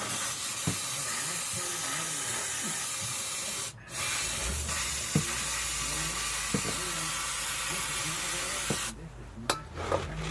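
Aerosol can of brake cleaner spraying in a steady hiss, with a brief let-up about four seconds in, then stopping near the end, followed by a few light clicks.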